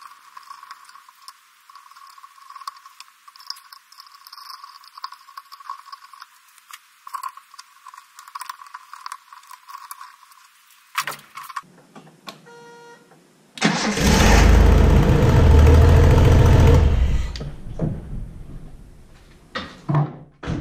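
Light clicks and handling noise as ignition-coil wires are pushed back on. About 14 s in, a Datsun L-series straight-six fires up immediately and runs loudly for about three seconds, then settles to a lower, steadier run. The instant start shows the coil and ignition connections were put back correctly.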